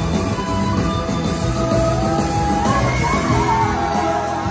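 Live rock band playing with electric guitars, keyboards and drums, heard from the audience in a large hall, with a lead melody line that bends and glides in pitch.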